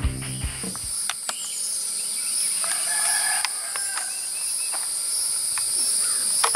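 A rooster crows once for about a second, roughly three seconds in, over a steady high-pitched drone of insects, with a few sharp clicks scattered through.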